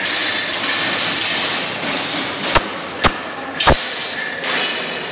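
Three sharp hammer blows on metal, about half a second apart, in the second half, over a steady hiss of workshop noise.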